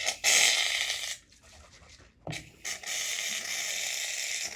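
Aerosol can of shaving cream spraying foam out in two hissing bursts: a short one, then a longer, steady one. There is a short knock between them.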